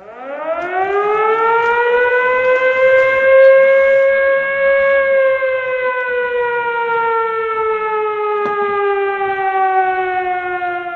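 Siren wail, civil-defence style: one long tone that rises over the first few seconds, holds, then slowly sinks in pitch.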